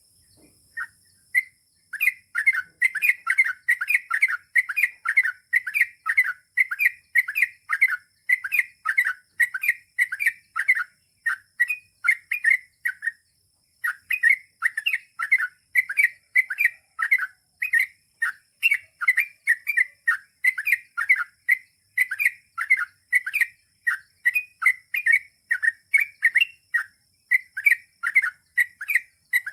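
Yellow-vented bulbul (trucukan) singing a long, fast run of short chattering notes, about two or three a second, with one brief pause about halfway through. A faint steady high hiss runs underneath.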